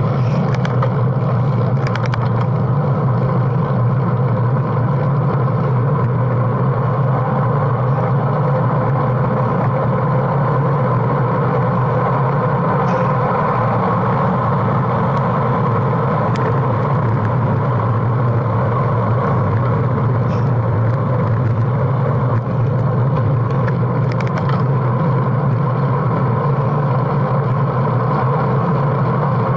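Steady rushing wind and tyre noise on a bike-mounted action camera's microphone as a road bike rides fast downhill, with a few faint ticks.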